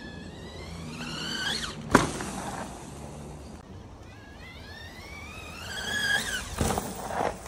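Electric whine of a CYC X1 Pro Gen 4 mid-drive e-bike motor rising in pitch as the bike accelerates under power, twice. A sharp knock comes about two seconds in, the loudest moment, and another comes near the end.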